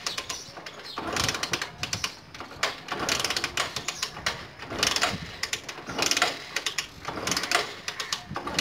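Bajaj Discover 100's single-cylinder engine being kicked over repeatedly by its kick-starter with the ignition off, a clattering ratchet-and-crank sound about once a second, without firing. Done in neutral with the drain bolt out so the oil pump pushes out the old oil.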